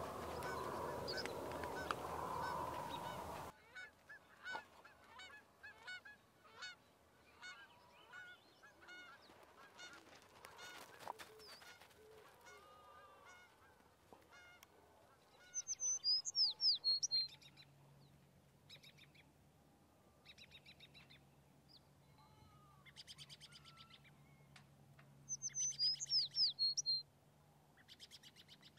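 Birds calling: a loud, dense chorus of calls that cuts off suddenly a few seconds in, then scattered chirps and calls with two louder rapid trills, one about halfway and one near the end. A low steady hum joins about halfway.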